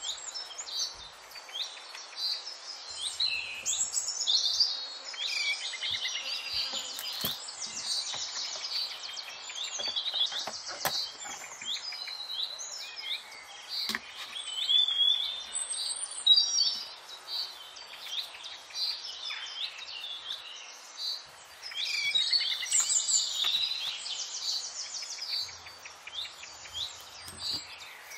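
Many small birds chirping and trilling continuously. A few light clicks and taps come from the clear ring binder and its packaging being handled, one of them as the binder rings are worked about fourteen seconds in.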